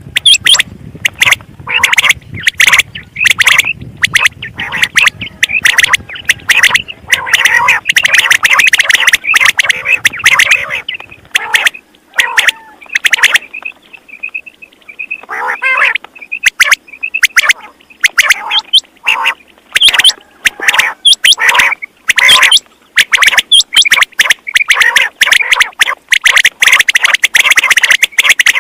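Quail calling over and over in quick, loud, distorted calls, with a short lull about twelve seconds in.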